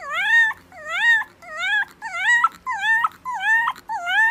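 Fluffy white puppy giving a run of about seven short, high howls, each about half a second long, dipping and then rising in pitch.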